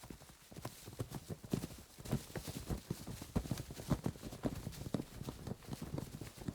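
Foley effect of movement across a battleground: a dense, irregular run of thuds and clattering steps, several a second, steady throughout.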